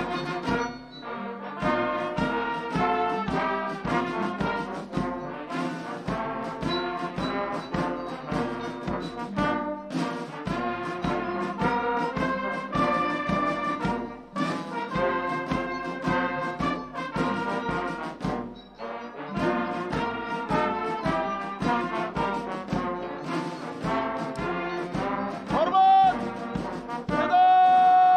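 Brass music with trombones and trumpets playing a tune of changing notes, ending on one long loud held note near the end.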